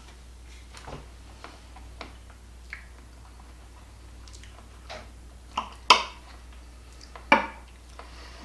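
Metal utensils clicking and scraping against a glass baking dish as a layered cake is cut and served, with a fork tapping a plate. Scattered light taps, then two louder, sharper clinks in the second half.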